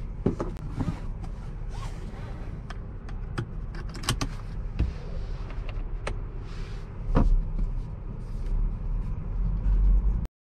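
Inside the cabin of a Jeep Grand Cherokee L, its 3.6-litre V6 runs at a steady low hum while scattered clicks and knocks come from the controls being handled, one as the rotary gear selector is turned about six seconds in. A couple of seconds later the low rumble grows louder as the SUV pulls away.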